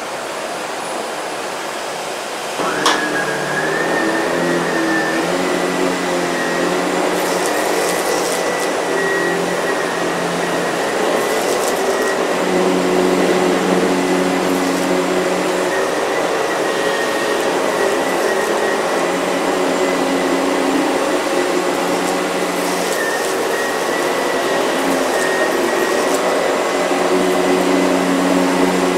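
Canister vacuum cleaner running on a rug. About three seconds in there is a click, and the sound gets louder with a steady high whine.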